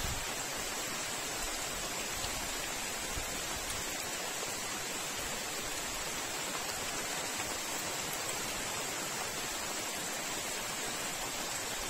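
Steady, even background hiss with a thin, high, unchanging tone above it. No distinct eating sounds stand out.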